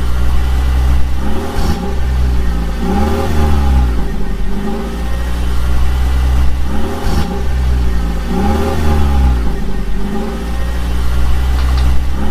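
Vehicle engine sound, as for a cartoon bulldozer or tractor, running steadily and revving up and back down over and over, about every two seconds.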